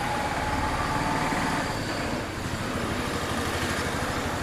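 A motor vehicle running steadily at close range, a continuous engine-and-road noise that sets in just before and holds level.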